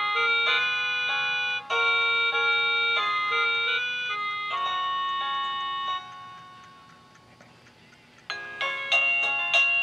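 Wireless plug-in doorbell chime unit playing one of its built-in electronic melodies through its small speaker. The tune ends about six seconds in and fades away. Just after eight seconds a new tune starts, with quick, sharply struck chime notes.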